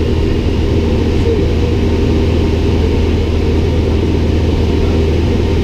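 Piston engine and propeller of a light single-engine airplane droning steadily in cruise, heard inside the cockpit.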